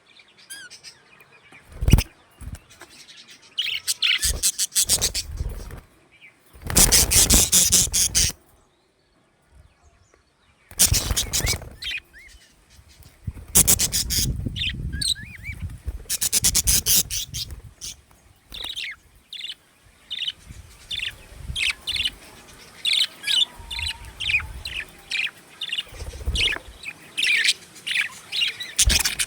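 Budgerigars chirping and chattering in loud bursts with pauses between, then a run of quick, short chirps in the last third.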